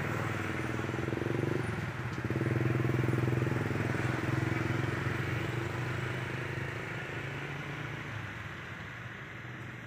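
A motor vehicle engine running steadily, growing louder to a peak a few seconds in and then slowly fading as it passes by, with a brief dip about two seconds in.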